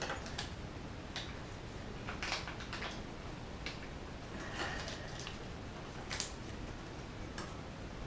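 Scattered light metallic clicks and ticks, coming irregularly, as hands work a bicycle's front-wheel quick-release skewer, tightening it just until pressure is felt.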